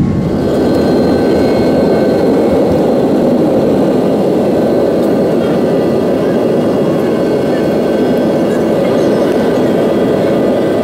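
Jet airliner's engines at takeoff power, heard from inside the cabin during the takeoff roll and climb-out: a loud, steady rushing noise with a faint high whine over it.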